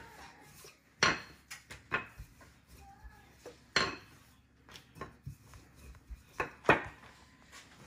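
Wooden rolling pin knocking and rolling on a granite countertop as flour tortilla dough is rolled out: a string of sharp, irregular knocks, the loudest about a second in, near four seconds and just before the end.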